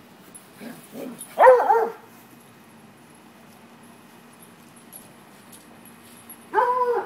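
A dog yelping during rough play: two faint short cries, then a loud cry whose pitch bends up and down about a second and a half in, and a longer, steadier cry near the end.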